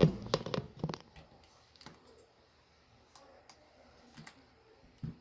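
A quick run of sharp clicks and taps in the first second, then a few faint scattered ticks: hands handling the opened laptop and pressing its controls as it is switched on.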